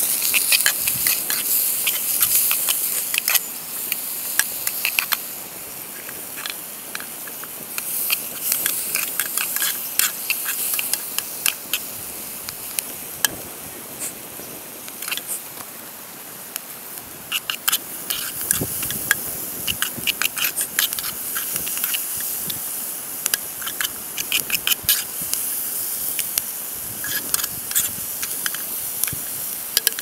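Menemen pan over an open wood fire: a continuous sizzling hiss with many small crackles and pops. It gets louder just as something is dropped into the hot pan at the start.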